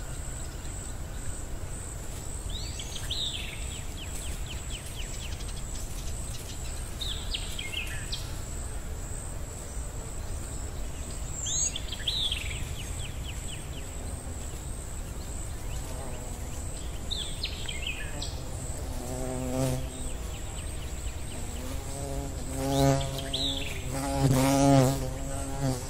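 Nature ambience: a steady high insect buzz, with a short falling bird-like chirp about every four to five seconds. A low pitched tone comes in near the end and swells twice.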